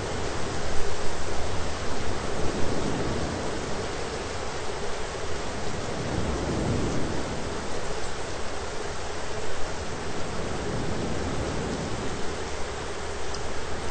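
Steady heavy rain with low thunder rumbling, loudest a second or two in and swelling again about six or seven seconds in.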